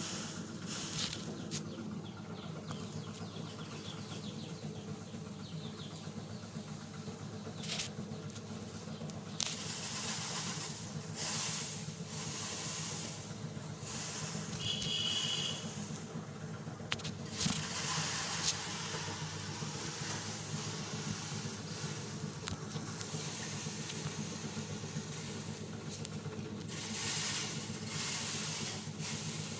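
A motor running steadily with a constant low hum and hiss, with a few sharp knocks, and a brief high chirp about halfway through.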